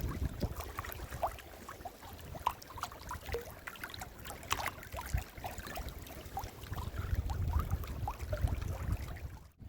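Water gurgling and lapping against a kayak's hull in a fast-running tidal current, with scattered small splashes and a low wind rumble on the microphone. The sound drops out briefly near the end.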